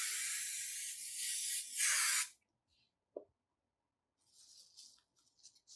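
Aerosol spray adhesive hissing from the can in one long spray, louder just before it stops about two seconds in. Then a single soft knock, and the faint crinkle of a plastic sheet being handled.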